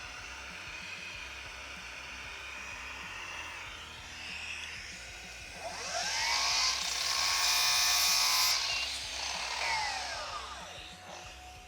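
Battery-powered 305 mm mitre saw (Milwaukee M18 FUEL) spinning up with a rising whine about six seconds in, then cutting through timber moulding for about three seconds and winding down with a falling whine. Background music runs underneath.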